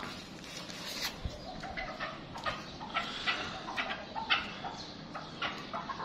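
Chukar partridges calling: a string of short, sharp notes, two or three a second, unevenly spaced.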